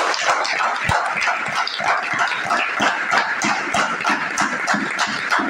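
A group of people applauding: many hands clapping at once, a dense, uneven patter of claps.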